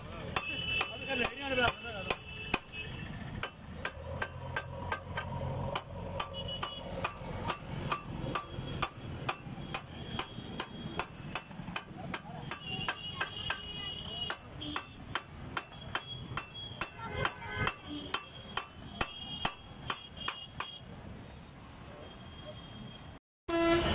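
Repeated hammer blows on a stripped-down motorcycle's metal frame, a steady run of sharp knocks at roughly two to three a second that stops near the end. The hammering is part of repairing a cracked frame.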